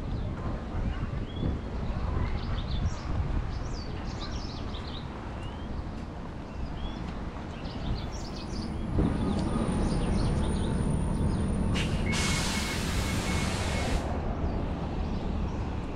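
Birds chirping over steady outdoor rumble. About nine seconds in, a vehicle comes through and grows louder, with a loud hiss lasting about two seconds near the end.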